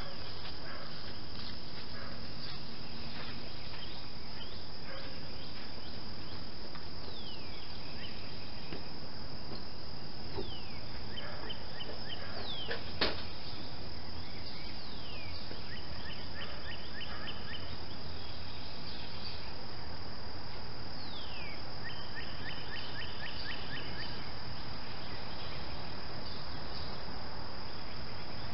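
Outdoor birdsong: scattered short downward-sweeping chirps and several runs of quick, evenly repeated notes, over a steady high-pitched drone. A single sharp click comes about halfway through.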